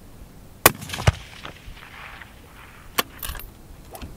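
Fullbore target rifles firing on a 600-yard range: a loud, sharp shot about two-thirds of a second in and a second strong report half a second later, then fainter, more distant shots near three and four seconds.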